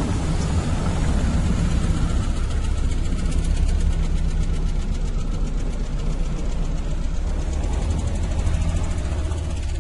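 An engine running steadily with a low rumble and a fast, even pulse.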